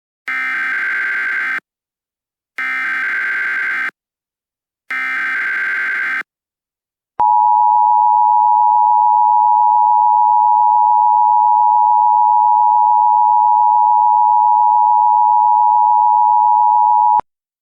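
Emergency Alert System header: three identical bursts of data tones, each a little over a second long and about a second apart, then the two-tone attention signal held steady for about ten seconds before cutting off sharply. This sequence announces that an alert message follows.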